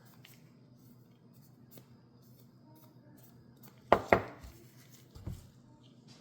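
Two sharp knocks on a hard surface in quick succession about four seconds in, then a lighter knock about a second later, over faint small ticks and handling noise.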